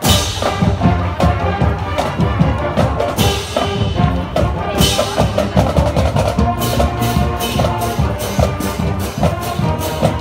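Marching band playing: brass including sousaphones over a drumline. The full band comes in together at the start, a long bright crash rings out about three seconds in, and rapid sharp drum strikes run through the second half.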